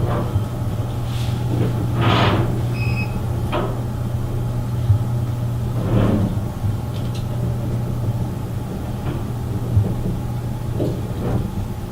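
Apartment-building elevator running with a steady low hum, broken by several scraping, rattling noises and a short electronic beep about three seconds in. Tenants say it still makes disturbing noise after a repair and do not trust it.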